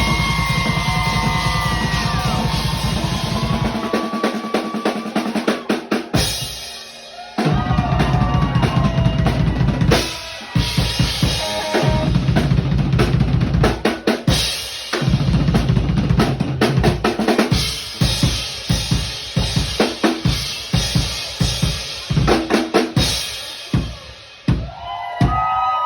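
Improvised solo on a Tama Superstar Hyperdrive drum kit with a Ludwig acrylic snare and Byzance cymbals: a fast, continuous bass-drum run for the first few seconds, a brief break about six seconds in, then snare and tom fills with separate hits and cymbal crashes.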